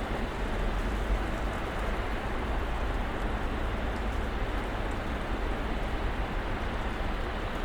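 Snowstorm ambience: a steady, even hiss with a deep low rumble underneath and a few faint ticks.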